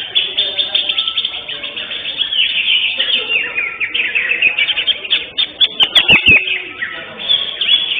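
Many caged greater green leafbirds (cucak hijau) singing at once in a dense chatter of chirps and whistles. A quick run of sharp clicks comes about six seconds in.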